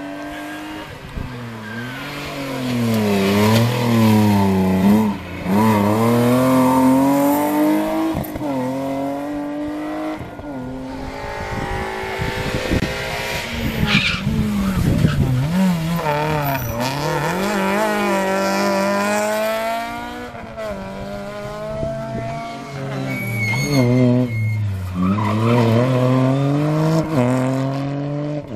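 Rally cars' engines at full throttle on a tarmac stage, one car after another, the pitch climbing hard and then dropping sharply again and again as they shift gear and lift off for the corners.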